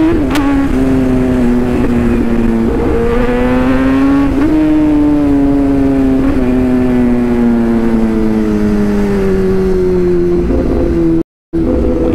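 Kawasaki ZX-10R's inline-four engine pulling under way, its pitch climbing, dropping at a gear change just after the start, climbing again, then winding down slowly over the next several seconds as the bike eases off. Wind rumble on the microphone sits under it, and the sound cuts out briefly near the end.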